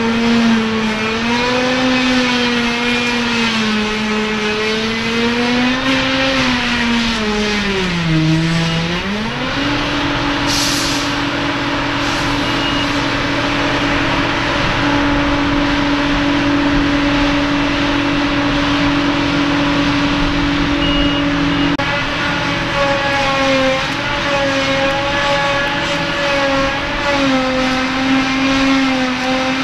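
CLAAS Jaguar 940 self-propelled forage harvester running under load while chopping grass: a loud droning machine note whose pitch wavers, dips about eight seconds in, then holds steady for about twelve seconds before wavering again. A short hiss comes about ten seconds in.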